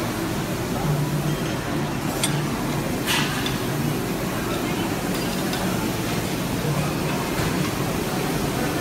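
Busy restaurant dining room: a steady hubbub of many people talking, with a couple of short clinks of dishes or cutlery about two and three seconds in.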